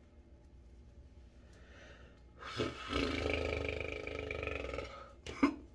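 A woman's drawn-out wordless vocal sound, lasting about two and a half seconds and starting about halfway through, then a single short sharp click near the end.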